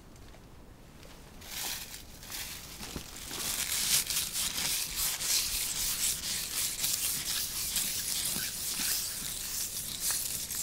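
Close, dense rustling and scraping, like something being rubbed and handled right next to the microphone. It starts about a second and a half in and goes on unevenly.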